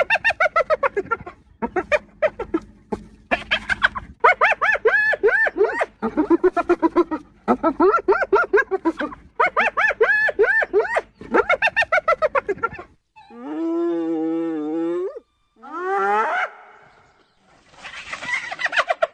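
Spotted hyenas giggling: long runs of rapid, pulsed laugh-like calls for about the first thirteen seconds, then a drawn-out wavering call, a short rising call, and a rough, noisy call near the end.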